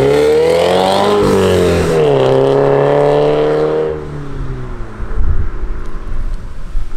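Scion FR-S's 2.0-litre flat-four accelerating away on its stock, fairly quiet exhaust. The engine note climbs, drops about two seconds in, climbs again, then fades out around four seconds in. Low wind rumble on the microphone follows.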